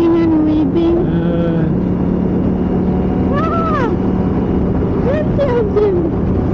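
KTM 890 Adventure R's parallel-twin engine running on the move, with a steady engine note under road and wind noise.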